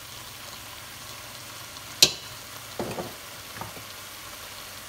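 Ground beef and onions sizzling in a pot with a steady hiss, with one sharp clink about two seconds in and a few softer knocks just after, as a spoonful of turmeric goes in.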